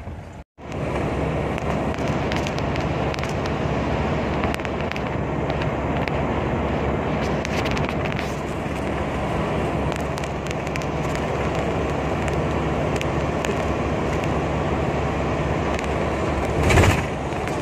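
Steady engine and road noise heard from inside a car driving along a highway, with scattered light clicks. The sound drops out for a moment about half a second in, and there is a brief louder rush near the end.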